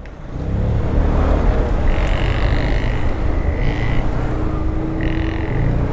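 Yamaha XMAX 250 scooter's single-cylinder engine running through an aftermarket sport exhaust while riding, under steady road and wind noise. A few short high-pitched tones come about two, four and five seconds in.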